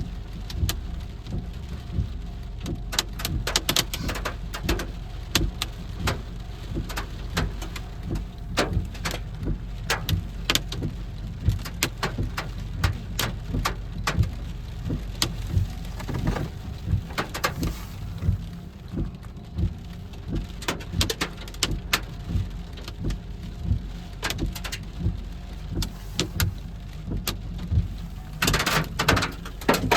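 Rain pattering, drops tapping irregularly and sharply on a surface, over a steady low rumble and a faint steady hum. The tapping thickens briefly near the end.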